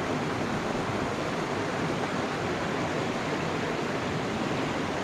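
Steady rush of running stream water, an even noise with no breaks.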